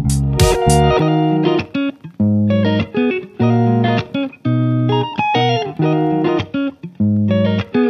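Instrumental background music: plucked, pitched notes and chords in short phrases broken by brief pauses.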